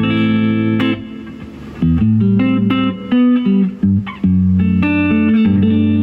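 Fender Stratocaster played clean through a Laney Lionheart LF60-112 1x12 valve combo: a sequence of chords, each struck and left to ring, with a quieter stretch about a second in. The amp's tone knob is turned up to 3 o'clock, which boosts the high mids.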